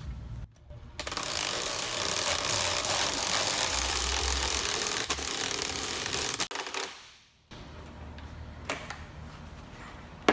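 Cordless drill running steadily, driving the screw of a bridge-style glue-pull dent puller to lift a crease in an SUV lift gate; it starts about a second in and stops after about five seconds. A few light clicks follow, and a sharp knock comes at the very end.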